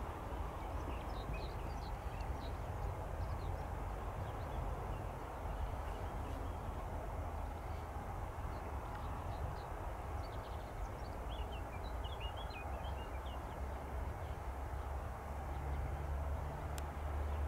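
Distant jet engines of a taxiing Airbus A319 running at low power, a steady low rumble that swells slightly near the end, with small birds chirping over it in short bursts.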